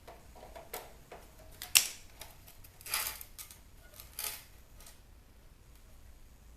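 Clicks and sharp cracks of plastic as a bug zapper's housing is pried and ripped apart by hand. The loudest crack comes a little under two seconds in, with more crackling around three and four seconds in. The clicks stop about five seconds in.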